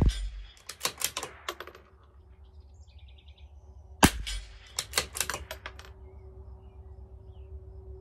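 Two .22 LR rimfire shots from a CZ 457 LRP bolt-action rifle, one right at the start and one about four seconds later. After each shot the bolt is worked, a quick run of clicks.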